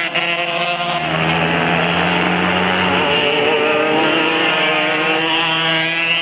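Winged micro sprint kart's Kawasaki KX125 two-stroke single-cylinder engine running hard, its note rising and falling as the kart goes round the track.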